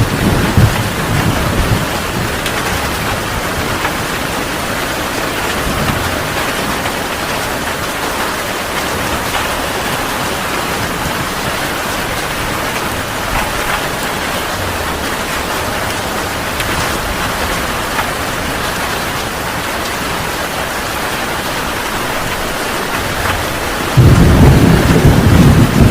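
Heavy rain falling steadily during a thunderstorm. Thunder rumbles low at the start, and a louder rumble of thunder breaks in suddenly near the end.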